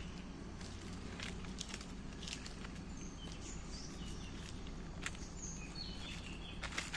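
A bicycle rolling along a dirt jungle path: a steady low rumble with irregular clicks and crackles from the tyres and bike. Brief high bird chirps come in from about three seconds in.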